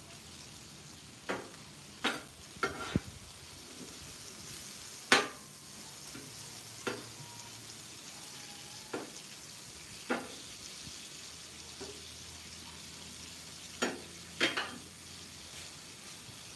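Shrimp frying in butter on a Blackstone steel flat-top griddle, a steady sizzle. A spatula scrapes and clacks against the griddle now and then as the shrimp are turned, about ten times, loudest about five seconds in.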